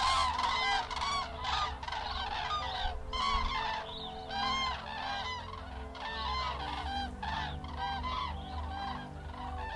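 Flock of common cranes (Grus grus) calling in flight: many overlapping calls from several birds at once, unbroken through the whole stretch.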